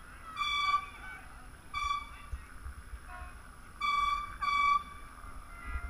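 Four blasts of a boat horn on one steady high pitch: two spaced a second or more apart, then a pair close together. A low wind rumble runs underneath.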